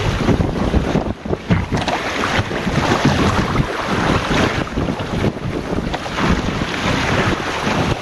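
Wind buffeting the microphone over the rush and splash of water along a Goat Island Skiff's hull as it sails through small ocean waves, the water noise rising and falling in surges.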